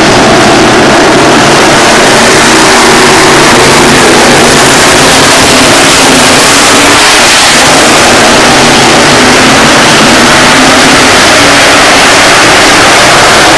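A pack of dirt-track sport modified race cars running their V8 engines hard around the oval: many overlapping engine notes rising and falling together in a loud, continuous din.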